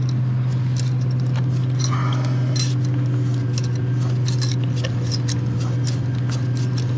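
Light metallic clinks and ticks as a sailboat backstay's rigging turnbuckle is worked loose by hand, over a steady low hum.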